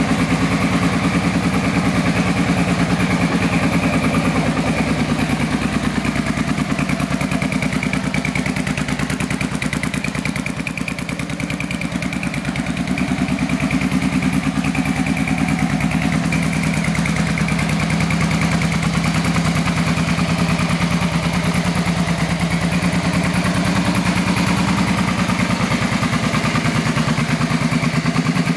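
Suzuki SV650's V-twin engine idling steadily, a continuous even pulsing throb.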